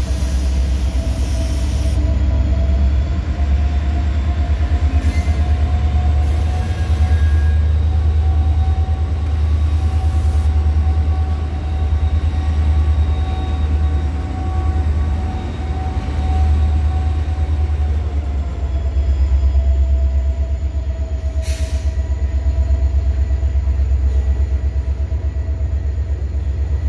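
Freight train cars rolling past: a heavy low rumble with rapid, even wheel clatter, over a thin steady wheel squeal that rises slightly in pitch and falls back.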